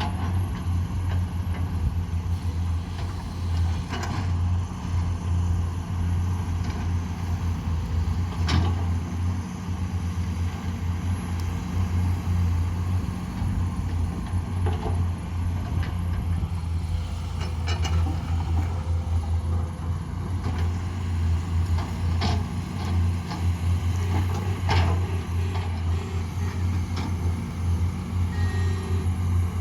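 Heavy diesel engines of an excavator and dump truck running with a steady low drone, broken by several sharp knocks a few seconds apart.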